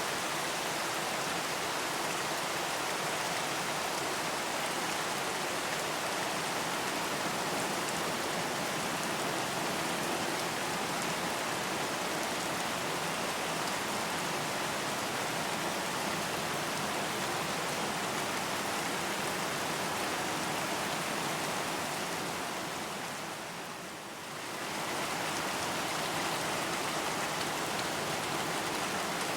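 Steady rain, an even hiss of drops. It fades down briefly and swells back about three-quarters of the way through.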